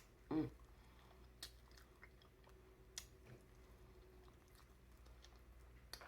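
Quiet chewing and mouth sounds of someone eating crab meat, with one short mouth noise near the start and a few faint sharp clicks.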